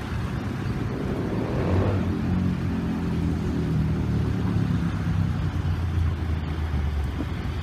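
Low engine hum of a vehicle, swelling about two seconds in and easing toward the end.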